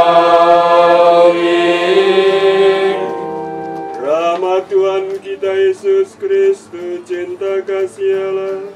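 Liturgical music: a held chord of hymn music fades out about three seconds in. Then a man's voice chants words on one repeated note, after a short rising slide into it.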